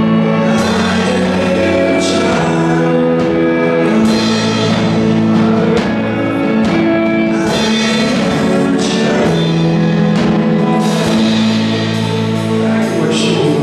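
Live worship band playing a song: a man singing lead over electric guitar, violin and drum kit, with steady drum hits under held notes.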